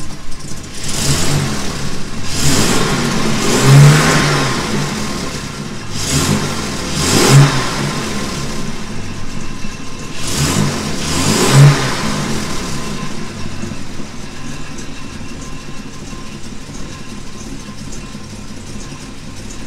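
Classic Jaguar Mk 2 engine revved three times by hand, the revs rising and falling each time, then settling back to a steady idle.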